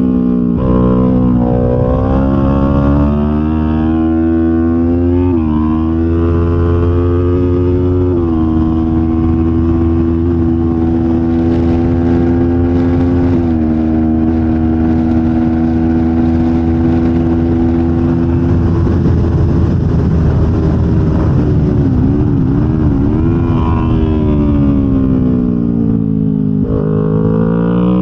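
2025 Kawasaki Ninja 500 parallel-twin engine at high revs under hard riding on track, heard onboard. The engine pitch steps as gears change, holds steady in the middle, then falls away and climbs again near the end.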